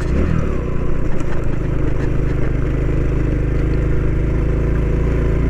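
Honda Pop 110i motorcycle's single-cylinder engine running at a steady speed while riding, with a steady rushing road and wind noise beneath it.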